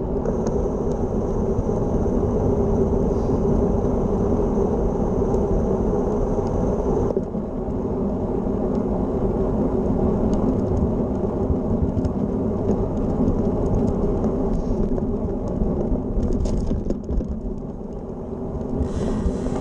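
Wind rushing over a handlebar-mounted camera's microphone with a road bike's tyres rolling on a paved path: a steady low rumble.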